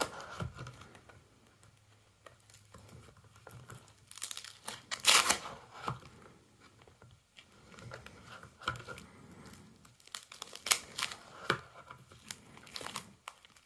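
Plastic binder pages holding baseball cards crinkling and rustling as they are turned, with the loudest rustle about five seconds in and a few sharp crackles later on.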